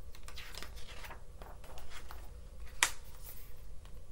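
Pages of a hardcover picture book being handled and turned: soft paper rustling, with one sharp snap a little under three seconds in.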